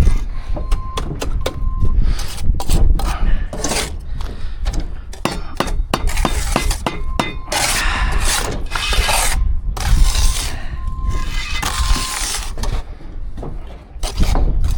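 Building-site handwork: a run of irregular knocks and clicks, with longer scraping stretches in the middle, against a constant low rumble.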